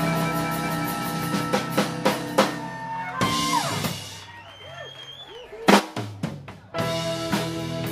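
Live blues band playing: electric guitars, bass and drum kit. About three seconds in the band drops out to a quieter passage with a few sliding guitar tones, a couple of sharp drum hits follow, and the full band comes back in near the end.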